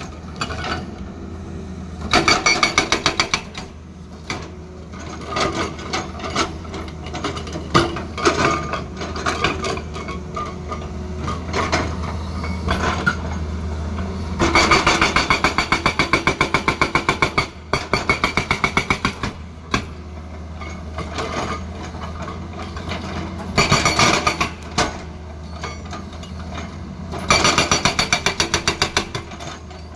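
Hydraulic rock breaker on a Tata Hitachi excavator hammering hard stone in several bursts of rapid, evenly spaced blows, each lasting a second to three. Under it, the excavator's engine runs steadily.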